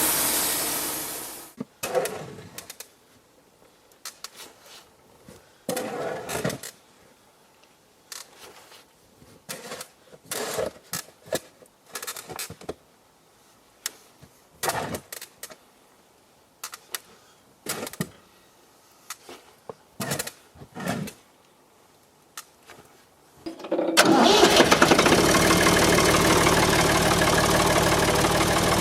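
A portable band sawmill cut ends about a second in, followed by some twenty seconds of scattered knocks and clunks of handling. Near the end an engine starts up and runs steadily.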